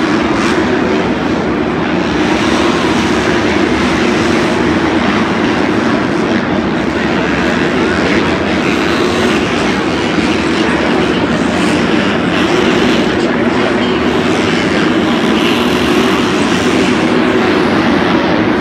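A pack of four-stroke supercross dirt bikes racing around the stadium track: a loud, steady, massed engine drone that does not let up.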